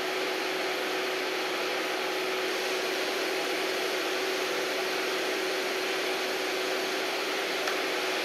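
Steady, even hiss with a faint continuous hum underneath, unchanging throughout.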